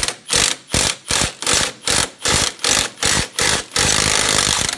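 Impact wrench hammering in short bursts, about three a second, then running steadily for about the last second. It is driving the forcing screw of a tie rod end puller to press a rusty wheel stud out of the hub flange.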